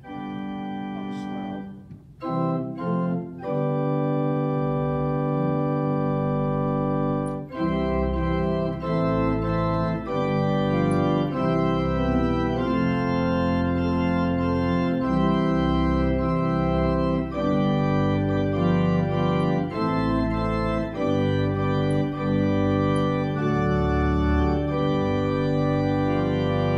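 R. Byard Fritts pipe organ playing sustained chords, soft at first, then fuller, with deep pedal bass notes entering about six seconds in and the full sound swelling from about seven and a half seconds. The organ is back in playing order after years unused, and its tuning is by the player's account not the greatest but playable.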